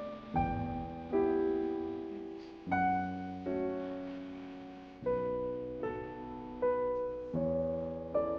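Background music: gentle piano or electric piano chords, struck about once a second and left to fade.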